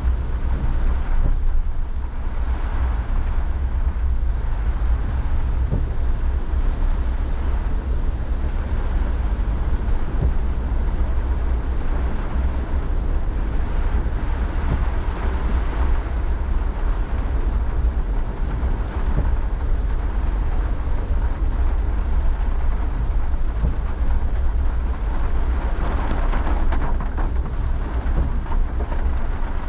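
Heavy tropical rain and gusting wind, a steady hiss of rain with a constant low rumble of wind buffeting the microphone.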